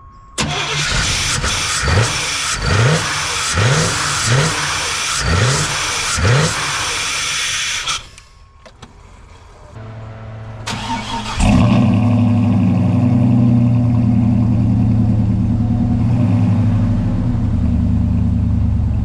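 Car engine cold start: about eight seconds of loud cranking with rising surges roughly once a second, which stops; after a pause the engine is cranked again, catches about eleven and a half seconds in, and settles into a steady idle.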